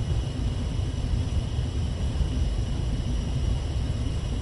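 Steady low machinery rumble with a few faint, steady high-pitched tones over it, the constant background drone of a ship's cabin.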